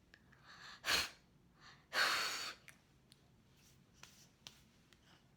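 A person's breath: a short sharp puff about a second in, then a longer sigh-like exhale about two seconds in, with a few faint clicks.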